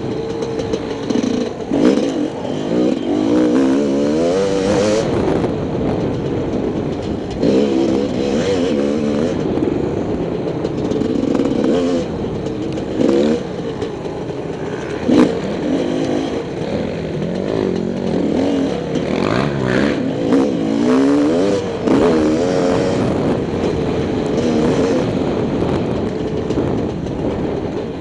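Enduro trail bike engine heard from on the bike, revving up and falling back again and again as the throttle is worked along the trail. A few sharp knocks cut through, the loudest about halfway through.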